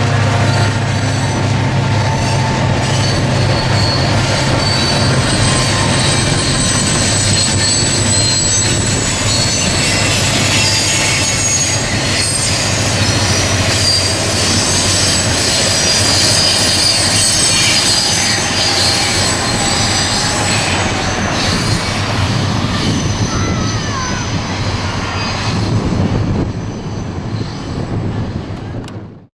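Freight train of boxcars passing at speed: steady wheel-and-rail noise with thin high squealing tones from the wheels. It dies away near the end as the last cars move off, then cuts off suddenly.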